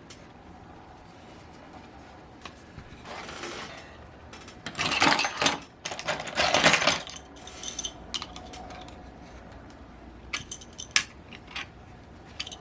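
Small metal parts and tools clattering and jangling on a workbench as they are handled: two louder rattling stretches about five and six and a half seconds in, then scattered clicks.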